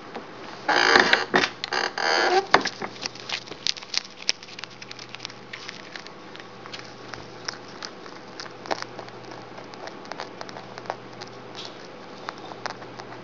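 Mini-lop rabbit crunching popcorn: a loud burst of crackling about a second in, then irregular crisp crunches and clicks.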